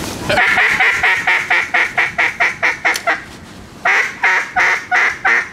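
Hand-blown duck call giving a fast, loud series of quacks, about five a second, in two runs with a short break about three seconds in, calling to ducks overhead.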